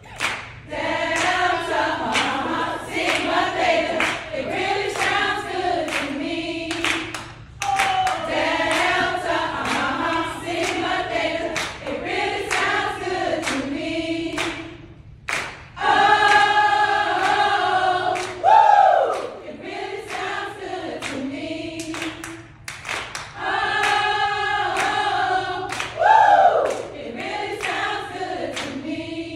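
A group of women singing and chanting together in short phrases, with sharp claps in time. Twice, near the middle and near the end, a loud call glides up and then back down in pitch.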